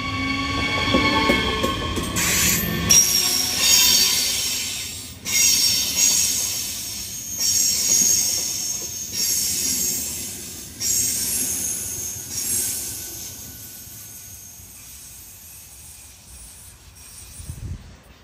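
A train running with high-pitched wheel squeal that comes in repeated stretches. A falling pitched tone sounds in the first few seconds, and the whole sound fades away in the last few seconds.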